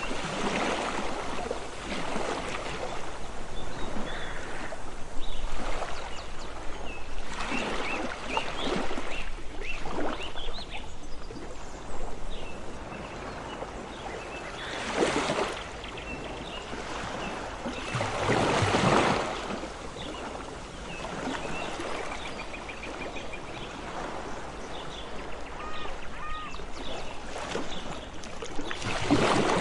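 Ocean waves washing in and out, with several louder surges, about a second in, around 8, 15 and 19 seconds, and near the end. Short high bird calls sound here and there over the surf.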